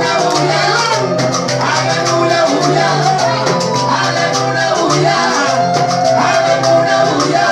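Cuban salsa-style music with maracas shaking a fast, even rhythm over low bass notes and a gliding melody line.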